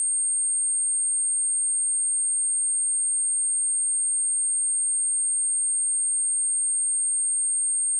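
A steady, high-pitched 8592 Hz sine-wave test tone, one pure pitch held without change.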